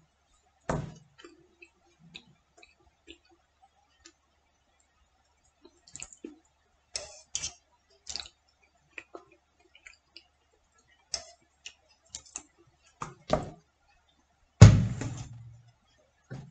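Scattered light clicks of a metal spoon against an enamel pot while eating. Near the end comes a single heavier knock with a short ring as the pot is set down on the table.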